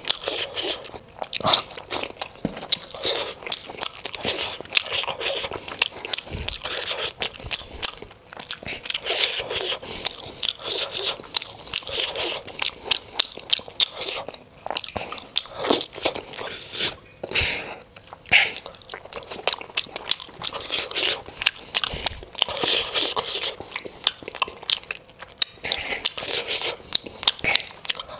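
Close-miked chewing and biting of steamed momos (dumplings), a dense, continuous run of short mouth clicks and smacks.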